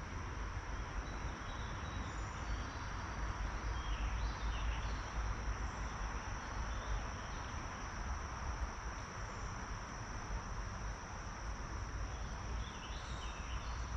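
Steady outdoor ambience: a continuous high-pitched insect drone over an even hiss, with a low rumble of wind on the microphone.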